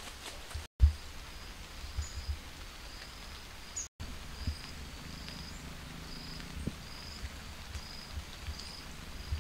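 Rural outdoor ambience: a short, high-pitched call repeating steadily about twice a second over a faint hiss, with a few soft low thumps. The sound cuts out for an instant twice.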